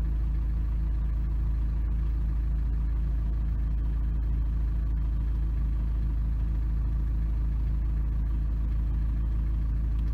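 Citroën Evasion's 2.0 HDi four-cylinder turbodiesel idling steadily, heard from inside the cabin as a deep, even hum.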